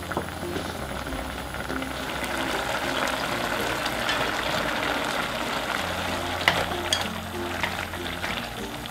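Food sizzling as it fries in a pan, the sizzle building over the first couple of seconds, with a couple of sharp clicks near the end. Light background music plays underneath.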